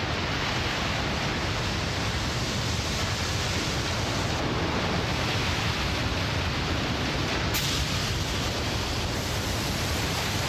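Steady roar of rushing seawater, a tsunami surge, an even noise with a heavy low rumble.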